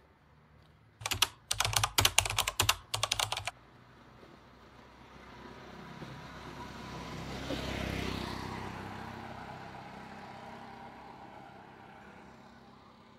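A quick run of about ten sharp, loud clacks over two and a half seconds, then a motor vehicle passing by, its sound swelling to a peak and slowly fading.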